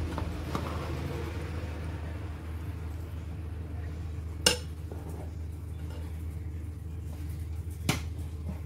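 A serving utensil clinks sharply against a ceramic dinner plate twice, about four and a half seconds in and again near the end, as fish sauce is served onto quinoa. A steady low hum runs underneath.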